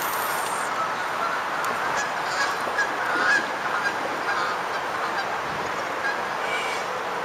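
Birds honking repeatedly in short, irregular calls over a steady hiss.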